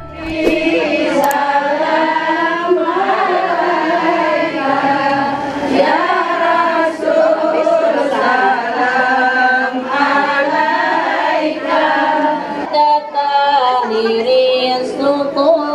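A group of women singing Arabic selawat, devotional praise of the Prophet, together in a continuous chant-like melody.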